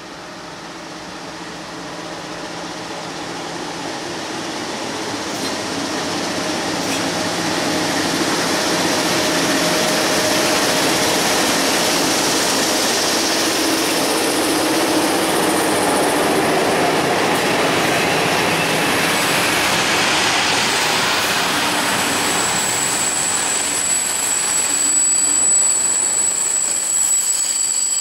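Freight train led by two MLW diesel locomotives approaching and passing, its engine noise and rumble growing steadily louder over the first eight seconds. In the last few seconds the wagons roll by, their steel wheels squealing in high, steady tones.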